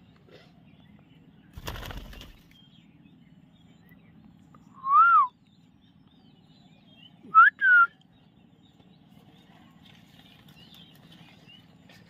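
Parakeets whistling: one loud clear note that rises and falls about five seconds in, then two short whistles in quick succession a couple of seconds later. A brief flutter of wings about two seconds in.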